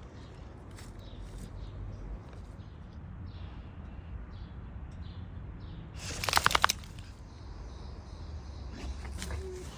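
Faint bird chirps repeating over a low steady rumble, with a brief loud burst of noise about six seconds in.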